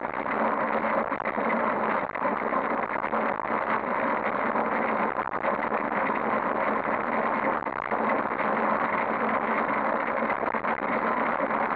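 Steady rattling vibration and wind rush picked up by a handlebar-mounted action camera on a bicycle riding along a cracked asphalt path.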